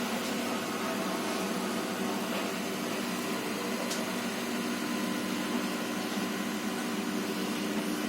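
Microwave oven running on a test cycle after magnetron repair: a steady hum with fan noise, the sign that the oven is powered up and working.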